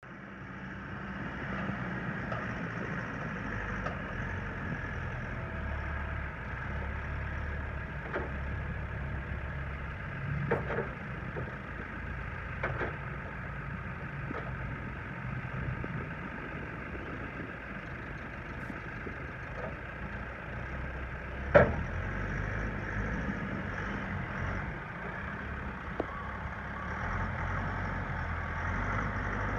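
Caterpillar 416C backhoe loader's diesel engine running steadily, with a few sharp knocks, the loudest about two-thirds of the way through.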